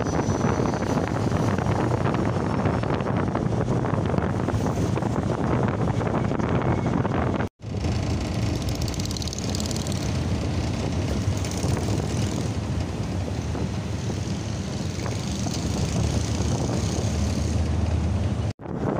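A Ford Ranger pickup driving along at speed, heard from inside the cab: a steady mix of engine, tyre and wind noise. The sound cuts out abruptly for an instant twice, about seven seconds in and near the end.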